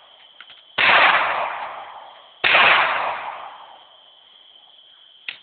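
Two shots from a semiautomatic .22 pistol, about a second and a half apart, each fading out over more than a second.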